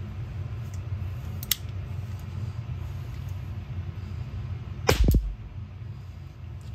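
Zoraki 9mm PAK blank-firing revolver firing one homemade primer-only blank, its powder drilled out: a single sharp pop about five seconds in. A lighter click comes about a second and a half in.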